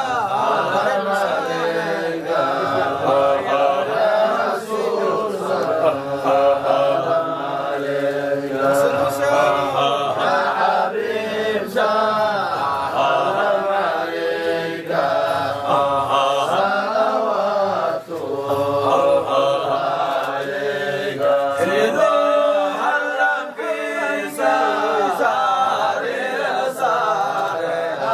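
A group of men's voices chanting a devotional Arabic qasida of salutations on the Prophet together in a Sufi dhikr, a continuous sung chant of many overlapping voices.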